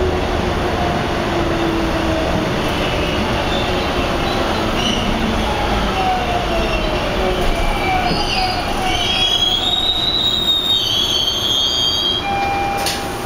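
Bombardier T1 subway car running in the tunnel, heard from inside the car: a loud, steady rumble of wheels on rail. High-pitched wheel squeal grows through the second half, and there is a single sharp click near the end.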